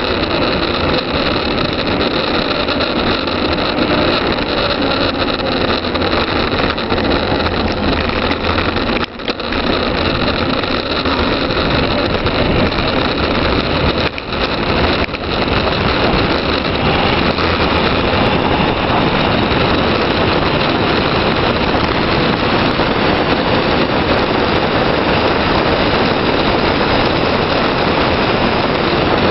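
Loud, steady rush of wind and road noise on a camera moving fast downhill along an asphalt road, with brief dips about nine and fourteen seconds in.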